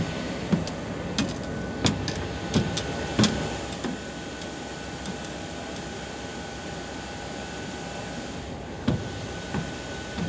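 Steady mechanical drone with a thin, high, steady whine. Several sharp clicks and knocks come in the first few seconds and again near the end.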